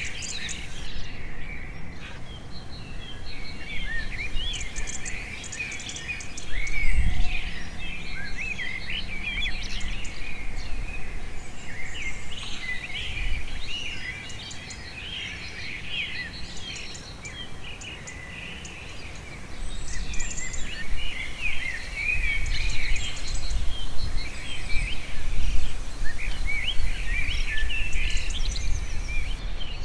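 Many small birds chirping and calling in quick, busy phrases, with low thuds and rumble at times, the loudest about seven seconds in and again over the last ten seconds.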